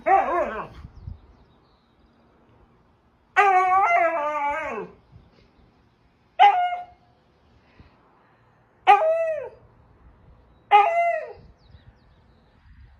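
A dog giving a series of five drawn-out vocal calls, each sliding down in pitch. The second call, about three and a half seconds in, is the longest at about a second and a half; the others are shorter.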